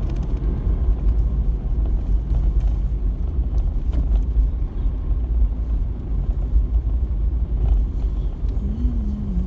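A car in motion, heard as a steady low rumble of road and engine noise with no breaks.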